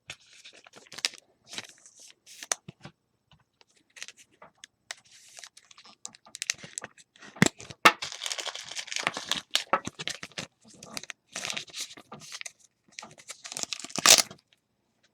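Baseball card pack wrappers being torn open and crinkled, with cards shuffled in hand: on-and-off rustling and crackling, busiest in the middle, with one louder rip near the end.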